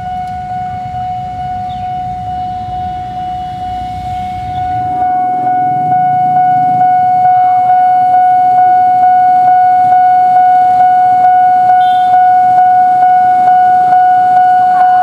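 Railway level-crossing warning alarm sounding: a steady high tone with a regular pulsing beat. For the first five seconds traffic rumble runs under it; then it becomes louder and clearer.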